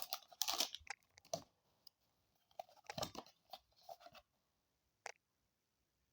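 Faint crinkling and crackling of a foil Pokémon booster pack being handled, in scattered short bursts, with a sharp click about five seconds in.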